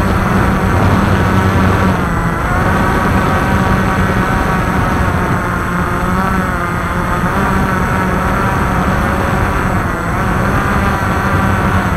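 Walkera QR X350 Pro quadcopter's motors and propellers whining steadily over a low hum, heard close up from the drone's own camera, the pitch wavering slightly as it flies.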